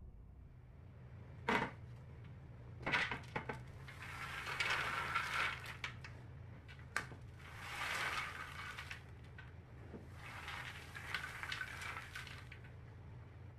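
Dry baked peanuts rattling and sliding on a metal baking tray as they are scooped and stirred, in three rattling spells, after a few sharp clicks, over a low steady hum.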